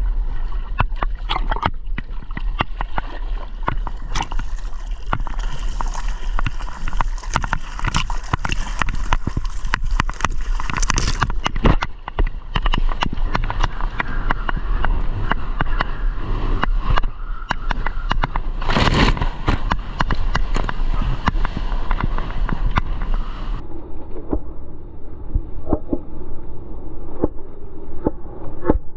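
Rushing, sloshing water of a breaking wave heard from inside it, with constant wind buffeting on the microphone and many splashes and knocks; a loud crash comes about two-thirds of the way through, and near the end the sound turns dull and muffled.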